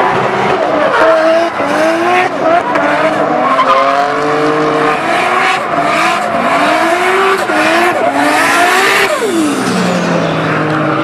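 A drift car's engine revs hard up and down while its rear tyres spin and squeal in a smoky burnout. About nine seconds in, the revs drop away sharply and the engine settles to a steady idle.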